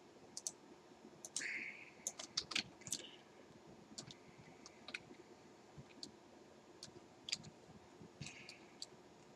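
Irregular clicking of a computer mouse and keyboard, a dozen or so sharp clicks with a cluster about two to three seconds in, plus a couple of brief soft hisses.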